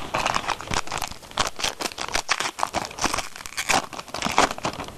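Foil trading-card pack wrapper being torn open and crinkled in the hands: an irregular run of crackles and rustles.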